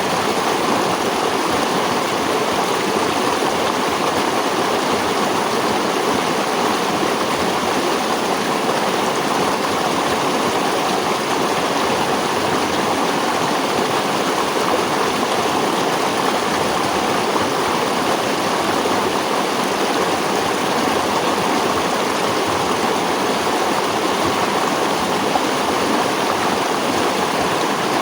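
Flowing water in a natural setting, a steady, even rushing that does not change.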